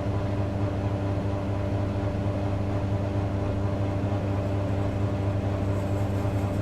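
Diesel engine of farm harvest machinery running at a steady speed, an even hum with no change in pitch.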